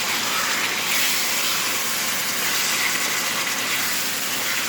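Chicken pieces, just added to hot oil in a pan, sizzling steadily.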